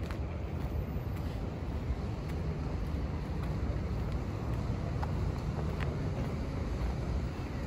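Steady low rumble of distant city traffic, with a few faint scattered ticks.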